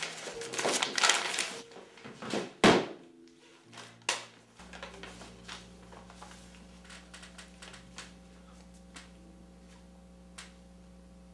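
Paper rustling and crinkling in someone's hands, then one loud thunk about two and a half seconds in and a smaller click a little later. After that only a steady low hum with a few faint ticks.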